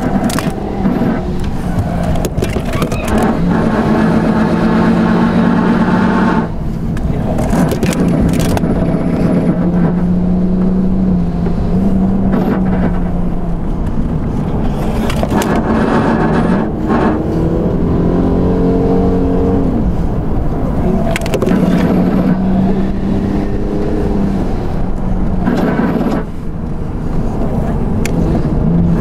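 Car engines revving hard through gear changes, heard from inside a moving car's cabin. The engine note steps up and down in pitch, with brief sudden drops in level about six seconds in, around twenty seconds and near the end as the throttle lifts.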